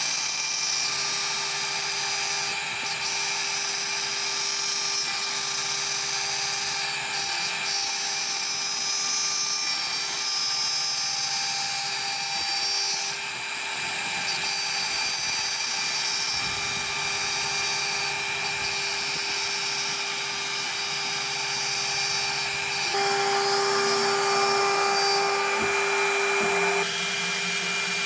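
CNC router spindle running at about 24,000 rpm while a 4 mm straight-flute wood end mill cuts pockets into beech: a steady high whine over the rasp of the cut. The whine grows louder for a few seconds near the end.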